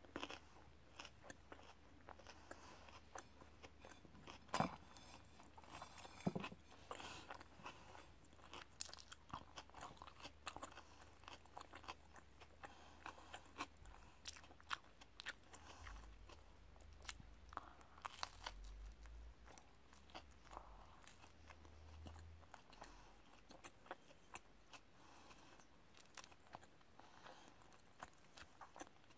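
Close-up chewing and biting of an open sandwich topped with lettuce, carrot and cucumber: quiet crunching and wet mouth clicks, with two louder crunches about four and a half and six seconds in.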